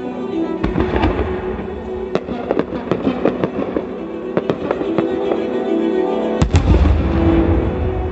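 Aerial firework shells bursting, a rapid series of sharp bangs and crackles with a heavier, deeper boom about six seconds in, over background music.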